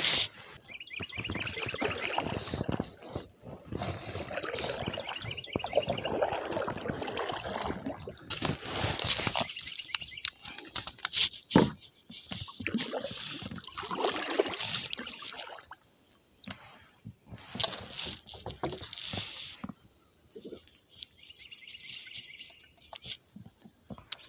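Sit-on-top fishing kayak on a river: water sloshing and splashing at the hull, with scattered knocks and clatter from the plastic hull and gear, in uneven bursts.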